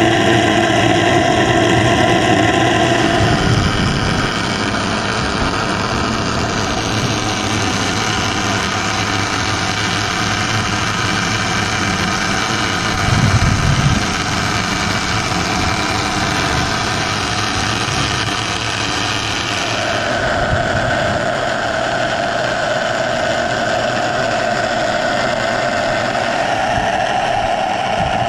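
Steady mechanical hum of an engine or pump heard through the water, carrying a few held tones; its pitch shifts twice, a few seconds in and again past the middle, with a brief low swell around halfway.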